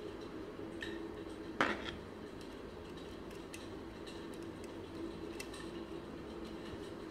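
Light clicks and small plastic and metal clinks from a hand-wired plastic extension switch board and a screwdriver being handled as its terminal wiring is finished, with one louder knock about a second and a half in.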